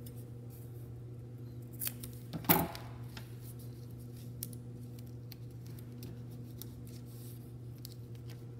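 Long steel scissors snipping through a cardboard strip, with a short click and then a louder sharp crack about two and a half seconds in, followed by faint ticks of cardboard and paper being handled, over a steady low hum.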